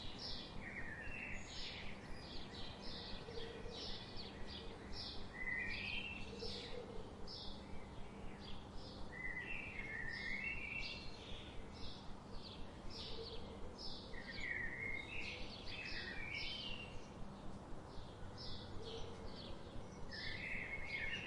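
Birds calling over a steady background hiss: a run of short high chirps about two a second, with a warbled phrase that dips and rises every few seconds and soft low notes now and then.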